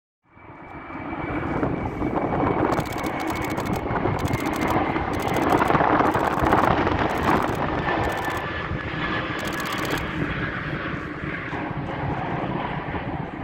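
Qantas Airbus A330-200's jet engines passing, a loud steady roar with a high whine that slides slowly down in pitch. Several bursts of rapid DSLR shutter clicks sound over it, with wind rumbling on the microphone.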